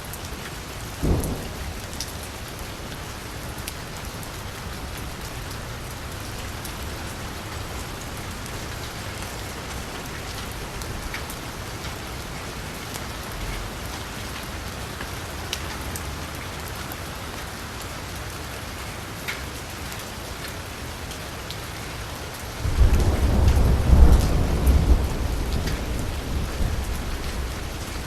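Steady rain falling on a street, an even hiss. About a second in there is a brief low thump, and near the end a deep rumble of thunder breaks in suddenly and slowly dies away under the rain.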